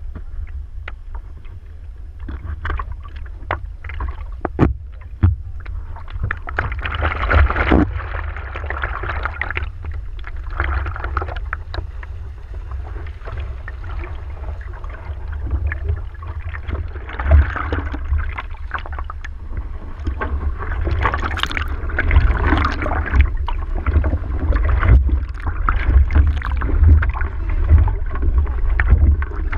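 Water sloshing and splashing against a surfboard, picked up close to the board's surface, with a steady low rumble underneath. The splashing comes in irregular surges and gets busier in the second half.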